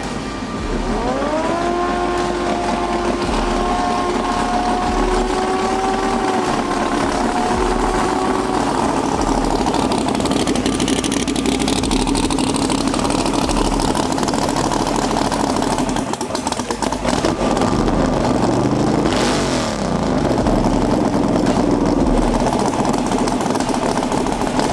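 Drag car engine revving: the revs climb about a second in and are held steady for several seconds, then fall and rise again later on.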